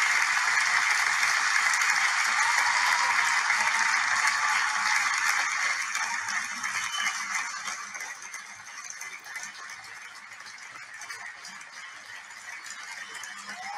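Crowd applause, a dense patter of many hands clapping, loud for the first six seconds or so and then fading to quieter clapping.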